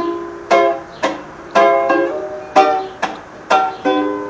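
Ukulele strummed in a steady rhythm, chords struck about twice a second and left ringing: the opening of a song before the singing comes in.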